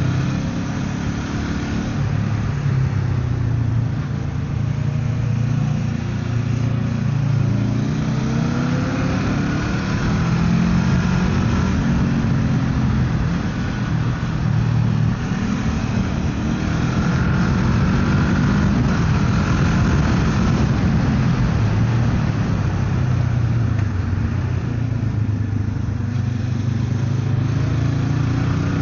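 A motorcycle engine running on the road, its pitch rising and falling with throttle and gear changes, over steady wind and road noise.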